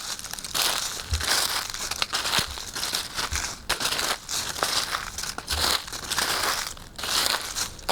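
Footsteps crunching through dry fallen leaves, a crackling crunch and rustle with each step.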